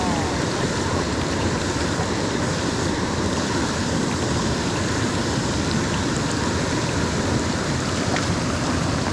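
Steady rush of fast water in a small mountain stream, cascading over rocks.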